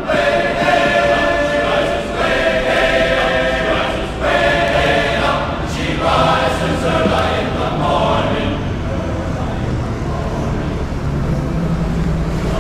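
Music with sustained, choir-like singing in phrases of about two seconds each, heard out on the street, that fades out a little past the middle. Near the end, a bus engine running with a steady low hum comes in.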